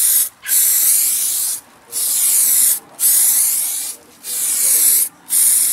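Aerosol spray-paint can spraying a car body panel in repeated bursts of about a second each, with short pauses between passes.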